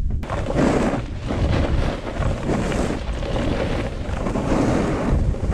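Wind rushing and buffeting over a handheld action camera's microphone during a fast downhill ride on snow: a loud, steady, rumbling rush.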